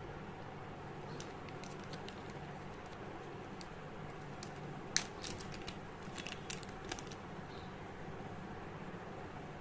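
Small clear zip-lock plastic bag being pinched open and handled: a few light clicks and crackles, with a sharper cluster about halfway through, the first of them the loudest. Steady background noise underneath.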